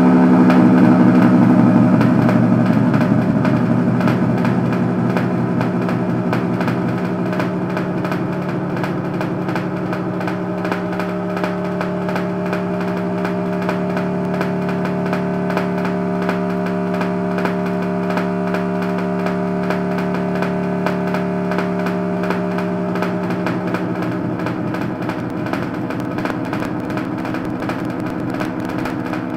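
A distorted electronic drone: a buzzing, held chord that stays steady and slowly fades over the stretch.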